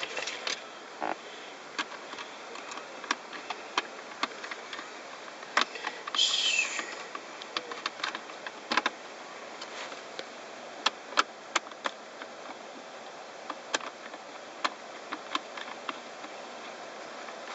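Irregular small clicks and taps from screws and plastic car-interior trim being handled and fitted, with one brief scraping rasp about six seconds in.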